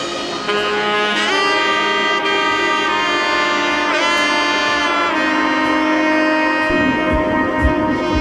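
Background music: a melody of long held notes that slide in pitch now and then, with a low beat coming back in near the end.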